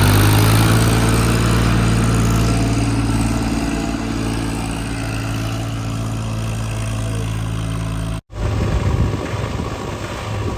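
Heavy diesel engine of earthmoving machinery running at a steady pitch. About eight seconds in, the sound cuts off abruptly and comes back as a rougher, noisier engine sound.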